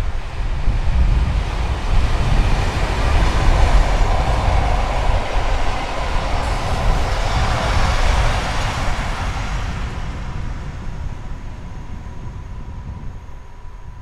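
DSB class MZ diesel-electric locomotive and its train of heritage passenger carriages running past, the wheels rolling on the rails. The sound is loudest as the carriages go by, then fades away after about ten seconds as the last carriage moves off.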